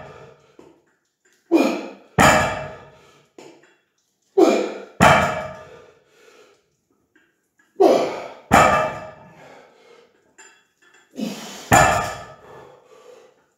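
Rolling thunder grip handle loaded with 60 kg of plates, lifted and set back down for repeated reps. Each rep gives two metallic knocks a little over half a second apart, the second heavier and deeper, about every three seconds, four times over.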